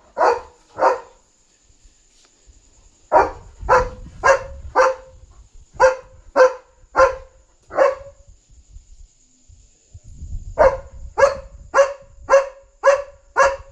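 German Shepherd barking in three volleys of sharp barks, about two a second, with pauses of a couple of seconds between them: alert barking at another dog outside.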